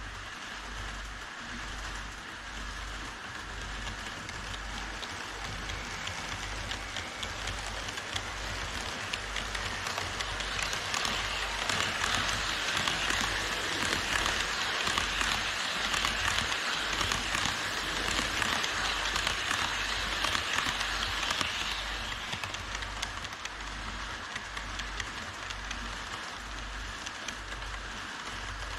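HO-scale model trains rolling on Kato Unitrack plastic viaduct track: a steady hiss of wheels and motors with a fine crackle of clicks. It grows louder through the middle as a train passes close, then eases off.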